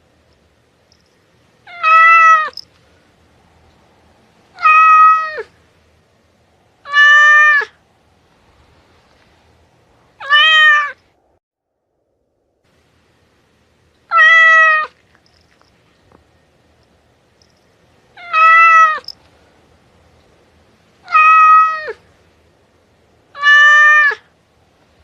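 Domestic cat meowing: eight short meows of about the same length and shape, a few seconds apart, each dropping in pitch at its end.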